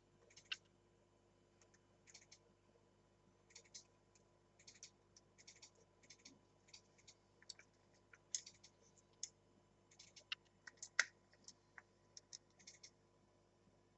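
Quiet, irregular clicks and short scratchy rustles of hands handling packaging and small model trains during unboxing.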